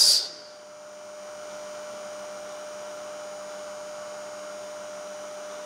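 Steady electrical hum with a few fixed tones over a soft hiss: background noise of the room or recording.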